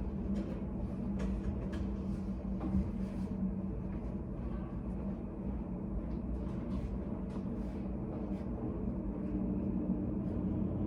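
Study cafe room ambience: a steady low hum with faint, scattered small clicks and taps throughout.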